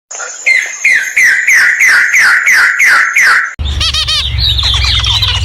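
A bird calls loudly in a fast, even run of about nine short notes, each sliding down in pitch. About three and a half seconds in, it cuts off abruptly and a different recording starts: quicker, higher chirping over a low rumble.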